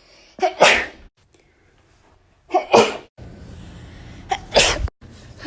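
A person sneezing three times, each a short voiced intake followed by an explosive burst. The sneezes come about two seconds apart, near the start, in the middle and near the end.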